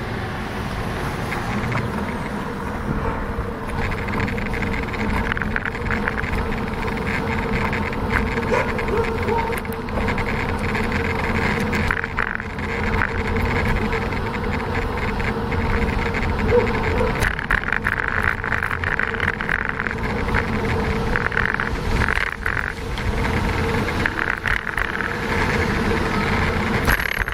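Wind rumbling on the microphone and tyre noise on asphalt while riding a bicycle, a steady rushing that swells and dips with a faint hum underneath.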